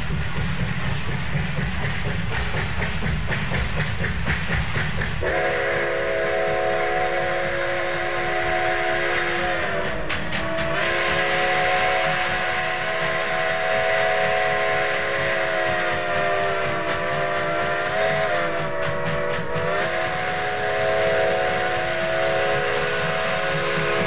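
Multi-chime steam locomotive whistle tuned to a C-sharp diminished chord, made from six-inch pipe. A low train rumble comes first. About five seconds in, the whistle opens into long blasts of a steady chord. Twice the blast sags in pitch for a moment before it comes back.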